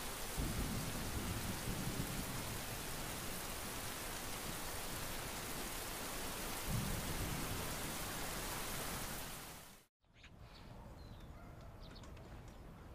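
Steady rain with low thunder rumbles, one about a second in and another around seven seconds. The rain fades and cuts off near the end, leaving a faint quiet background.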